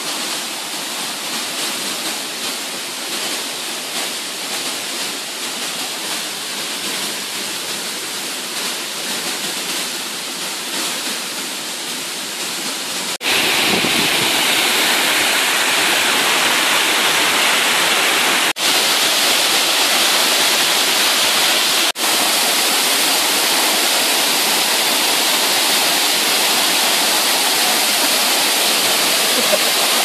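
Waterfall rushing: a steady hiss of falling water. About thirteen seconds in it jumps louder and brighter as the cascading falls are heard close up, cutting out for an instant twice after that.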